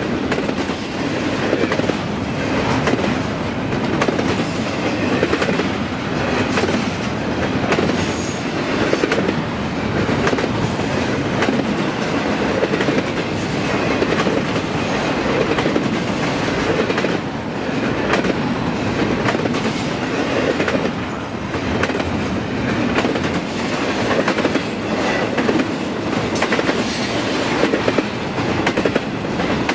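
Railroad cars rolling past, their wheels clattering steadily over the rail joints.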